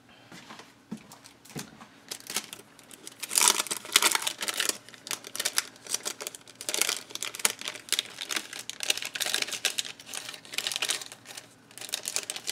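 A clear plastic packet of die-cut paper pieces being handled and rummaged through: crinkling and rustling in irregular bursts, loudest about three to five seconds in.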